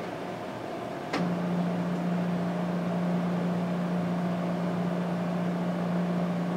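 Homemade RepRap extruder's stepper motor starting with a click about a second in, then humming at one steady pitch as it feeds plastic filament through the hot end, over a faint steady background hum.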